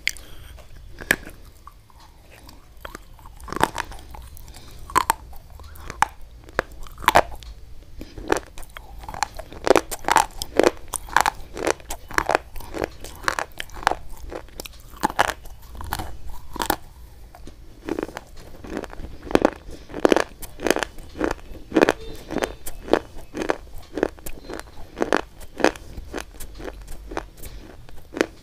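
Close-miked ASMR biting and crunching of hard white sticks: a long series of sharp, dry crunches. They come sparsely at first, then several a second from about eight seconds in.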